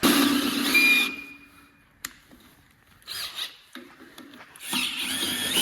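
Handheld power tool whirring in short runs on the rotary engine: a burst of about a second at the start, a brief one around three seconds in, and a longer run starting near the end. A single sharp click about two seconds in.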